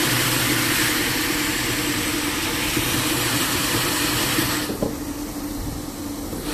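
A 5-gallon bottle prewashing machine running: a steady motor hum with a loud hiss over it. The hiss cuts out about three-quarters of the way through while the hum goes on.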